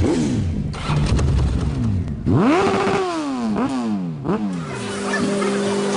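Sports motorcycle engine revved hard several times, its pitch sweeping up and falling away with each blip, then held at a steady note near the end.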